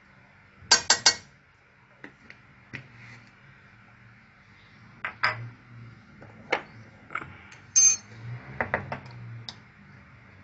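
Metal spoon clinking and tapping against a stainless steel pot as ground turmeric is spooned in: a quick triple tap about a second in, then scattered single clinks and another quick run of taps near the end, one of them ringing.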